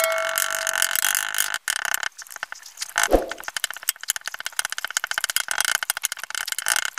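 Wooden pestle pounding and grinding charred coconut coir in an iron kadhai, a rapid run of crunching, scraping strokes, with one heavier knock about three seconds in. The burnt fibre is being crushed to fine ash.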